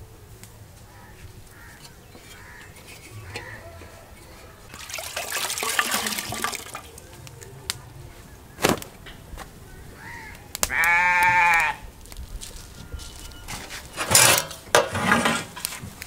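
One long, wavering bleat from livestock about eleven seconds in, the loudest sound. Around it, a cotton cloth rustles and flaps as it is handled, in two spells, one around five seconds in and another near the end, with a single sharp click between them.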